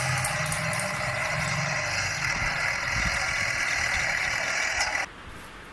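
Steady engine-like running noise from a toy truck, which drops away abruptly about five seconds in.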